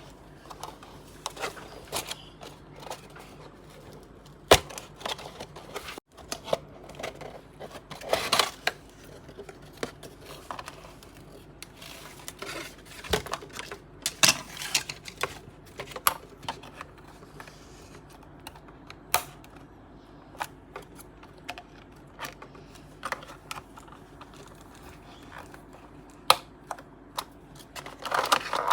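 Irregular clicks, taps and rustles of a toy box and its plastic packaging being handled and opened, with a few sharper snaps among them.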